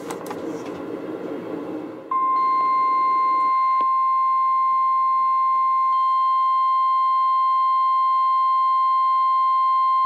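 NOAA weather radios sounding the 1050 Hz warning alarm tone ahead of a severe thunderstorm warning. After about two seconds of hiss, one loud, steady high tone starts and holds. It grows fuller about six seconds in as another radio joins.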